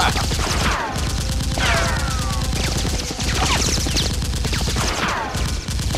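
Sustained rapid automatic gunfire, a dense run of shots, with falling whistles recurring every second or two.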